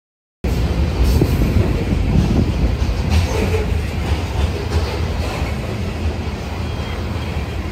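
BNSF freight train of covered hopper cars rolling past, a loud, steady low rumble with the clatter of wheels on the rails, starting abruptly about half a second in.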